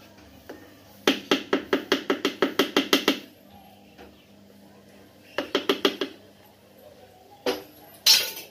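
A metal spoon tapping quickly on a plastic tub of thick mango ice cream mixture while it is levelled: a fast run of about sixteen taps, a shorter run of about six, then two louder knocks near the end.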